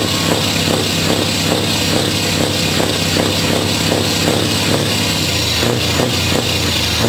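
Scania V8 truck engine idling steadily through its chrome side exhaust pipe, with electronic dance music and a steady beat of about two beats a second.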